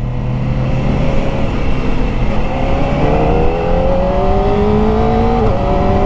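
Kawasaki ZX-4RR's 399 cc inline-four engine pulling hard under acceleration. Its note climbs steadily from about two and a half seconds in, drops sharply at an upshift near the end, then starts climbing again, under a steady rush of wind.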